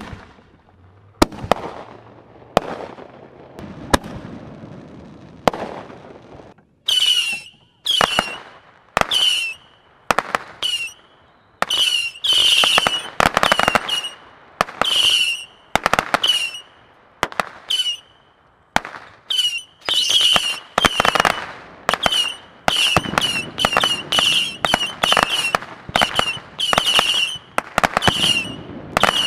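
Consumer fireworks going off: a few sharp bangs, then a rapid run of whistling shots, each a brief whistle with a crackling report. The shots come faster, about two a second, in the last third.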